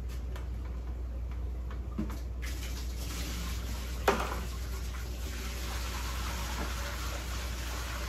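Salt water poured from a five-gallon plastic bucket into a glass aquarium tank: a splashing rush that builds through the second half. A single knock about four seconds in, over a steady low hum.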